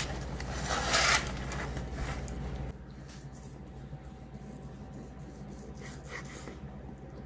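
Aluminium foil crinkling as it is pulled back from a smoked brisket, loudest about a second in. Then a long slicing knife sawing faintly through the brisket's crusty pepper bark.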